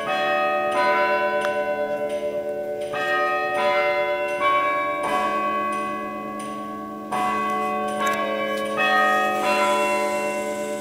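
Tower clock chime bells striking a melody of about a dozen notes at different pitches, each note ringing on under the next, set off by the Stanford tower clock mechanism.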